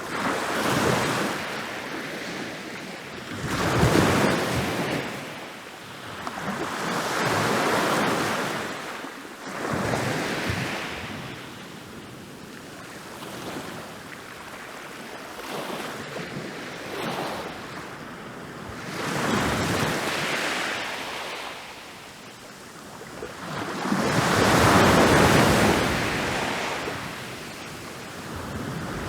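Ocean waves rolling in and breaking on a beach, one after another, each swelling up and washing back down over a few seconds. A calmer stretch comes in the middle, and the biggest wave breaks about three quarters of the way through.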